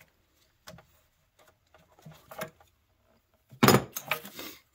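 Light clicks and knocks of hand tools and engine parts being handled under a truck's hood, with a louder clatter about three and a half seconds in.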